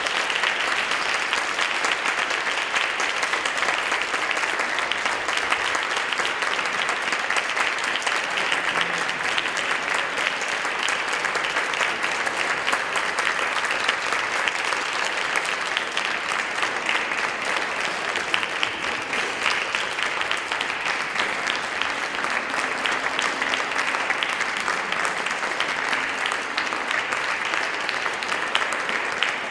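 Audience applauding: dense, steady clapping that goes on throughout.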